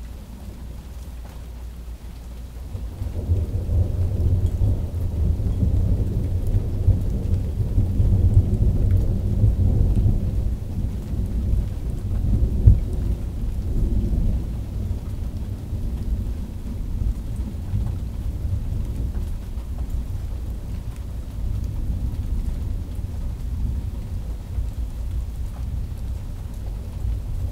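Thunderstorm: a long roll of thunder swells in about three seconds in, peaks in the middle, then rumbles slowly away, over steady rain.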